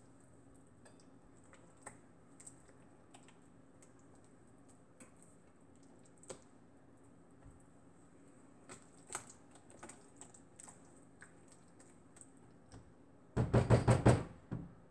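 A spoon stirring thick sauce in a nonstick frying pan, with faint scrapes and light taps against the pan. Near the end comes a quick run of about six loud knocks as the spoon is rapped on the pan.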